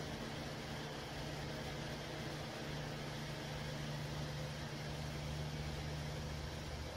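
A steady low hum over a soft, even hiss.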